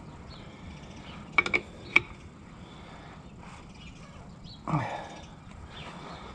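Steel wrenches clinking against hydraulic hose fittings as a fitting on a tractor's remote outlets is tightened: three quick ringing metallic clinks about a second and a half in, and one more near two seconds. Near five seconds a short low sound falls in pitch.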